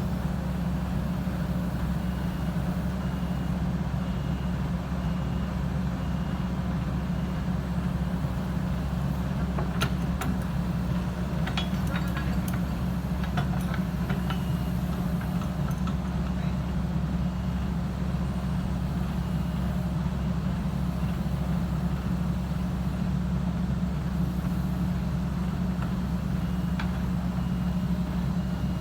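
Heavy diesel engine running steadily at an even speed, with a few faint clicks and knocks about a third of the way in.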